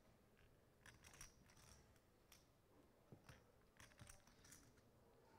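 Near silence with faint, irregular clicks of poker chips being handled at the table.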